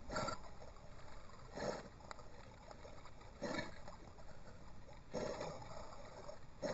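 Lake water sloshing against a sealed underwater camera housing at the waterline, in five regular surges about a second and a half apart, over a low watery hiss.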